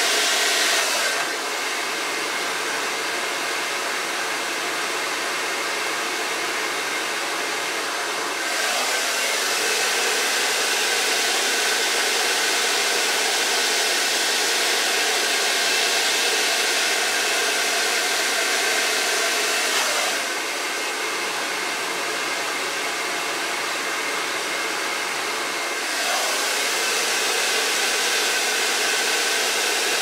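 Rusk Speed Freak hair dryer with its concentrator nozzle blowing steadily during a blowout, its rushing air getting quieter and louder in turns a few times as it moves along the hair.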